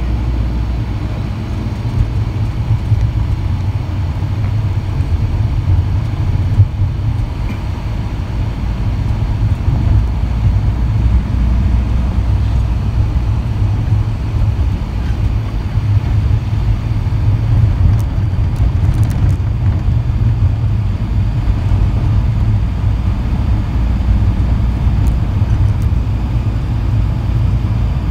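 Steady low rumble of a moving vehicle heard from inside its cabin: engine and tyres on the road.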